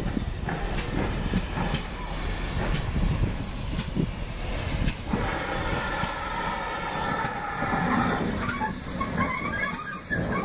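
GWR 57xx-class pannier tank engine L.94 and its coaches rolling past: steam hiss and running noise with wheel knocks over the rail joints and points. From about five seconds in there is a metallic squeal.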